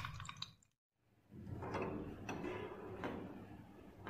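Fine fizzing crackle from a rusty hammer head in a bubbling chemical bath, then a short dead silence. After that come a few light metallic knocks and scrapes as the wired hammer head is lifted against the rim of a tin can full of liquid.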